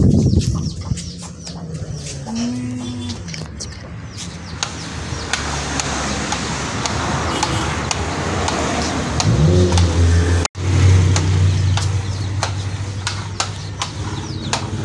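Carpet pile being brushed by hand with a small brush to pull out cat fur and hair: scratchy, clicky strokes. About two-thirds of the way through, a low drawn-out drone that rises in pitch at its start comes in and is the loudest sound.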